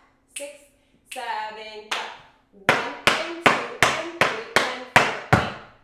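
Metal taps on tap shoes striking a wooden tap floor: about eight sharp, evenly spaced taps, a little under three a second, in the second half.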